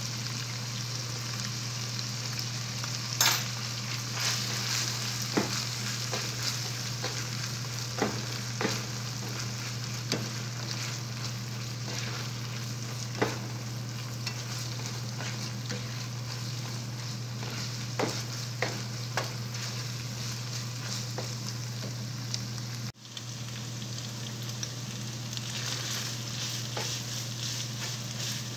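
Ground meat sizzling in a frying pan as it is stirred into tomato sauce, with the spatula knocking and scraping against the pan every second or two. A steady low hum runs underneath.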